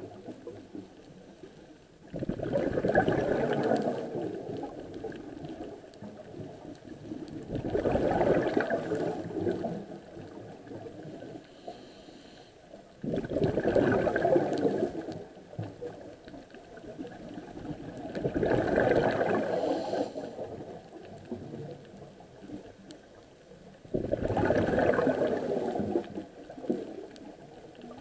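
Scuba diver breathing through a regulator, heard underwater: five long rushes of exhaled bubbles, about one every five and a half seconds, with quieter stretches between.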